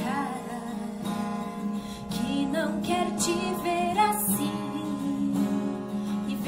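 A woman singing a Portuguese Christian song, with wavering held notes, over a strummed acoustic guitar.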